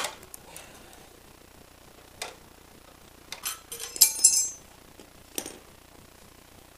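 Metal hand tools (Allen socket, extension and ratchet) clinking against each other and the bike's metal parts: a handful of separate sharp clicks, with a brighter ringing clink about four seconds in.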